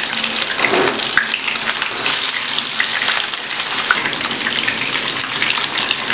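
Beef mince kababs frying in hot oil in a nonstick pan: steady sizzling with many small crackles and pops. The sound shifts slightly about four seconds in.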